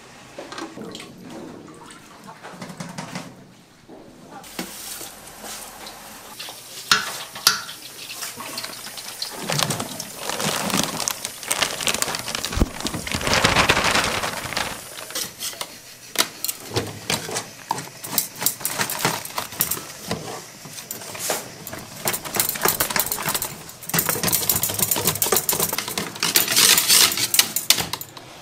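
Food-preparation sounds: irregular clattering, knocking and handling of utensils and dishes, with some water, louder in spells.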